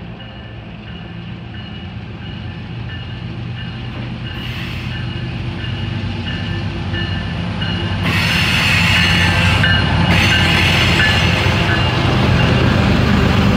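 Diesel locomotives of a CSX freight train approaching, their engines' low rumble growing steadily louder. About eight seconds in, the lead units draw level and the sound jumps to a loud, full rush of engine and wheel noise.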